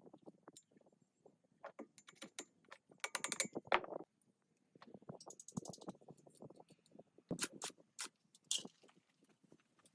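Clicks, knocks and short rattles of hand tools and metal parts being worked on generator parts, with a quick run of clicks about three seconds in.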